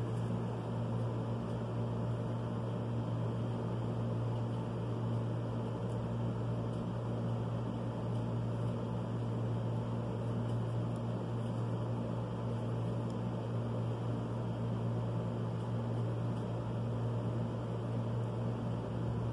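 Steady low hum over an even background hiss, with no distinct events.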